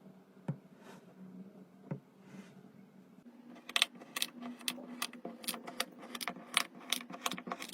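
A knife working through kinetic sand: a few soft scrapes and two sharp clicks, then from about three and a half seconds in a quick run of crisp chopping taps, several a second, as the blade strikes down through the sand.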